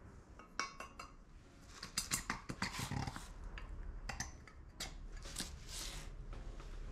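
Irregular clicks and scrapes of metal pistons being handled and set into the bores of a new Yamaha XJR1300 cylinder block, coming in short clusters.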